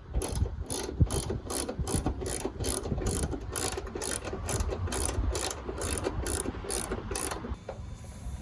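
Hand socket ratchet clicking steadily, about three clicks a second, as a bolt is turned down, here the hood-strut bracket bolt into its nut plate; the clicking stops near the end.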